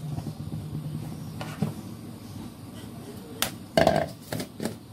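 Plastic jars and containers clunking against a kitchen counter as they are handled and set down: a few separate knocks, the loudest cluster about four seconds in.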